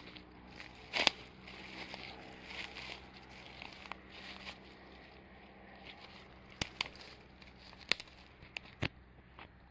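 Footsteps on dry leaf litter and gravel ballast, with irregular sharp cracks of twigs snapping underfoot. The loudest crack comes about a second in, and a cluster follows near the end.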